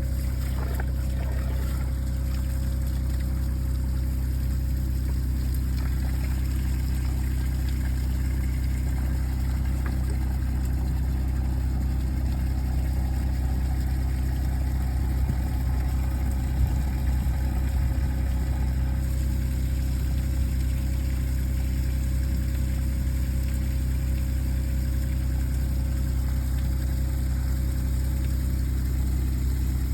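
Site dumper's engine idling steadily.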